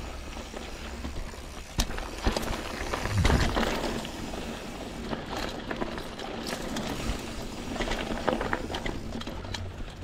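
Mountain bike rolling over dry dirt singletrack: knobby tyres crunching on the ground and the bike rattling over bumps, with sharp knocks scattered through it and the loudest jolt about three seconds in.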